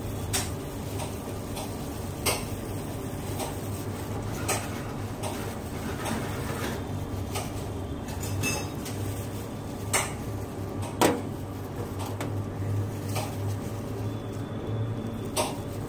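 About half a dozen sharp clinks and knocks of utensils against steel bowls as chopped onion is scooped and scattered onto a sandwich layer, over a steady low hum.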